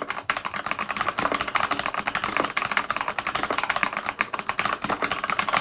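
Rapid typing on a Galax HOF Gaming mechanical keyboard with Cherry MX Brown switches: a fast, continuous patter of key clicks, many keystrokes a second.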